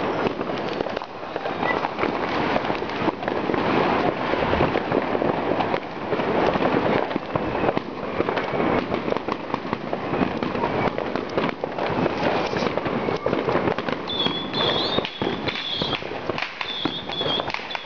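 Fireworks and firecrackers going off all around without pause, a dense crackle of many overlapping bangs. Short high whistles sound several times near the end.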